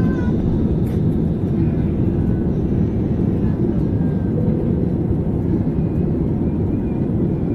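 Steady low rush of jet engine and airflow noise heard inside an airliner cabin in flight, with faint voices in the background.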